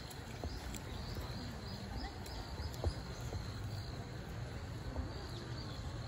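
Outdoor ambience: a steady low rumble with faint, short high chirps repeating all through, and a few soft clicks.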